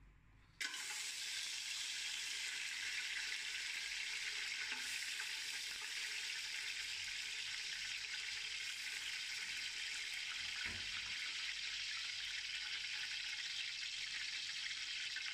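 Whole spices (cinnamon sticks, bay leaf, cloves and cardamom) hitting hot ghee and oil in a steel pot and sizzling. The frying starts suddenly about half a second in and holds steady as the spices fry.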